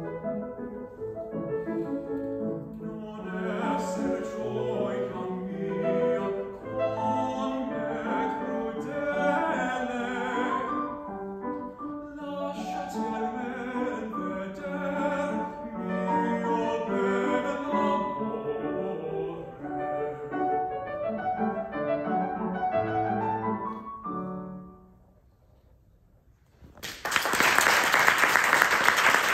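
A male classical singer performing an operatic aria with piano accompaniment. The singing ends about 25 seconds in, and after a brief hush an audience breaks into loud applause.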